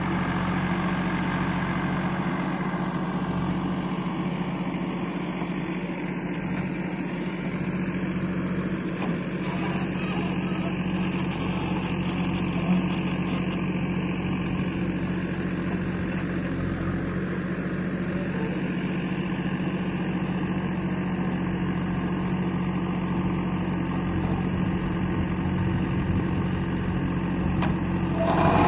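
JCB backhoe loader's diesel engine running steadily while its rear backhoe arm digs and lifts soil.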